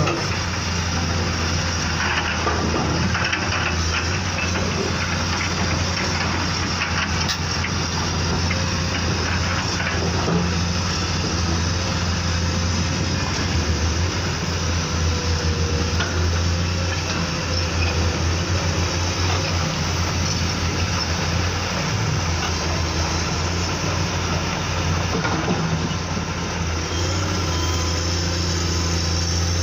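Radio-controlled model excavator and dump truck at work: a steady low engine-like drone runs throughout, with small clicks and crunching of dirt and gravel over it.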